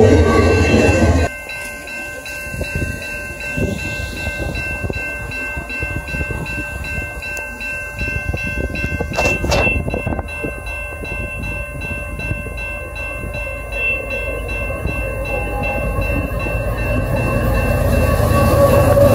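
Level-crossing warning bell ringing steadily while a freight train led by a CN diesel locomotive approaches, its low rumble growing louder toward the end.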